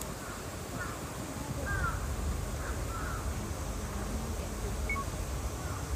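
Several short bird calls in the first three seconds, over a steady low rumble.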